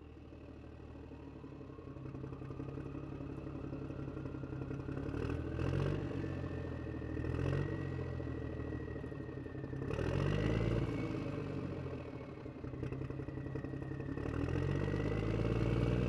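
Small electric motor turning a toy concrete mixer's can drum: a whine that rises slowly in pitch over the first several seconds, over a low hum that swells and fades every few seconds, with some rattling.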